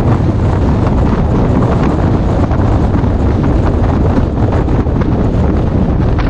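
Loud, steady wind buffeting the microphone, with the low rumble of a moving car underneath.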